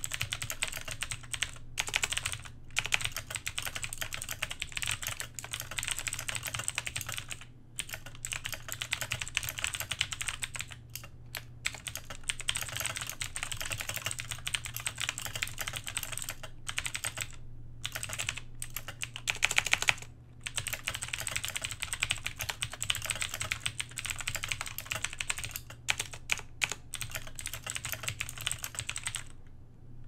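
Fast typing on a Razer BlackWidow X Ultimate mechanical keyboard with Razer Green clicky switches: a dense, very loud stream of key clicks at about 100 words per minute, broken by a few brief pauses and stopping near the end.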